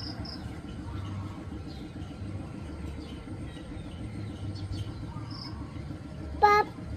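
Steady low outdoor rumble with faint high chirps over it; near the end, one brief loud high-pitched call.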